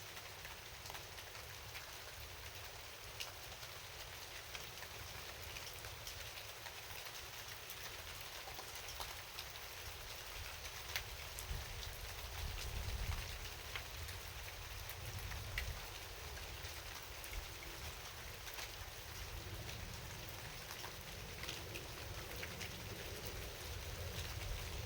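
Rain falling steadily, with many separate drops ticking through an even hiss of rain, over a low rumble that swells a little about halfway through.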